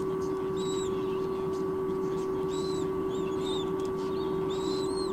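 White-bellied sea eagle nestlings peeping: short high-pitched peeps every second or so, over a steady hum.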